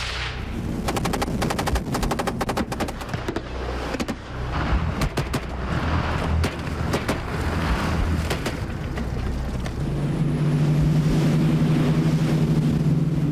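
Rapid bursts of automatic rifle fire with live rounds for the first few seconds. It gives way to the steady drone of a rigid-hull inflatable boat's engine running at speed, with rushing water and spray. The engine grows louder and more even near the end.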